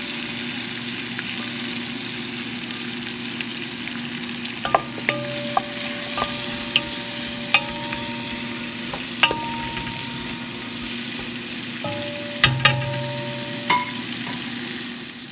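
Sliced onions and bell peppers sizzling steadily as they fry in a metal pot, stirred with a spoon that clinks against the pot about a dozen times, mostly in the middle and near the end, the pot ringing briefly after several of the clinks.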